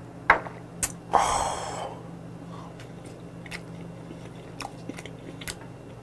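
Close-miked eating sounds: two sharp clicks near the start, then a loud breathy rush lasting under a second, then a run of small soft clicks of a man chewing monkfish liver (ankimo).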